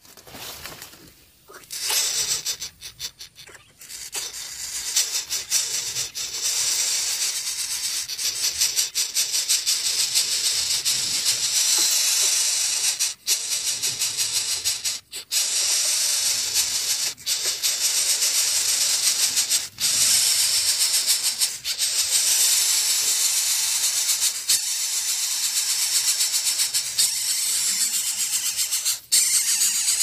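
Coucal nestlings hissing with beaks open, a dense, fast-fluttering hiss that starts up in the first two seconds and keeps going with a few short breaks.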